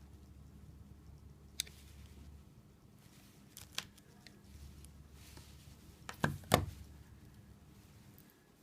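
A few sharp clicks and knocks from something being handled. The loudest are a pair about six and a half seconds in, and a faint low hum comes and goes underneath.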